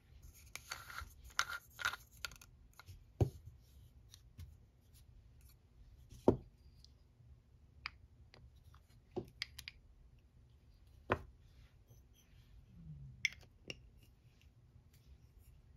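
Nail-stamping tools being handled on a table: a short stretch of scratchy scraping with quick small clicks, then a few sharp clicks and taps spaced a couple of seconds apart.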